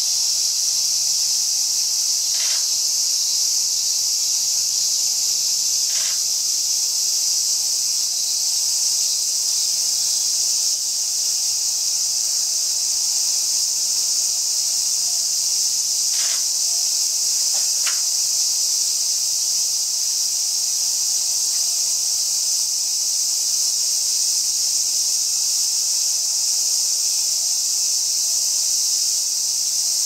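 A steady, unbroken, high-pitched chorus of summer insects. Four faint, short clicks sound over it.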